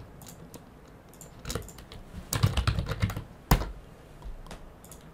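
Typing on a computer keyboard. Scattered keystrokes, then a quick run of them in the middle and a single sharper click about three and a half seconds in.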